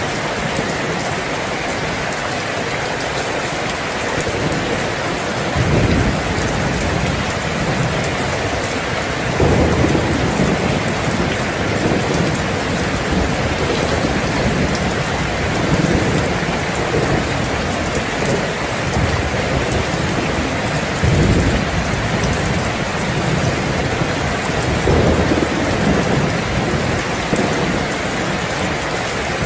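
Heavy rain falling steadily, with rolls of thunder rumbling in several times, the first about six seconds in.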